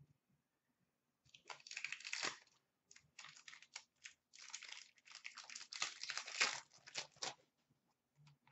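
Wrapper of a 2015-16 Upper Deck Series 2 hockey card pack crinkling and tearing as it is ripped open. The irregular run of sharp rustles starts a little over a second in and lasts about six seconds.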